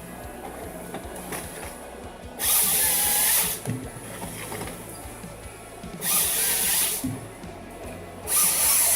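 Powered saw cutting through wood in three loud, hissing bursts of about a second each, over background music.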